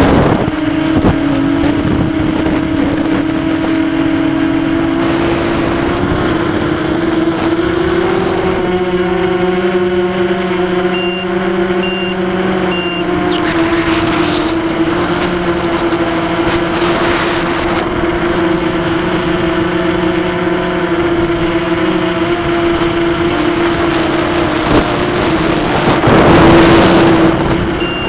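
Quadcopter's brushless motors and propellers heard from the onboard camera, a steady whine holding nearly the same pitch. Three short high beeps about a second apart come in the middle, and a loud rush of wind noise comes near the end.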